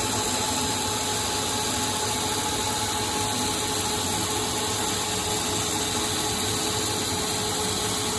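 CNC lathe running a single-point threading pass, an ACME threading insert cutting along a spinning 4140 steel bar, with a steady hiss of spray-mist coolant. The sound is an even, unbroken machine noise with a faint steady whine.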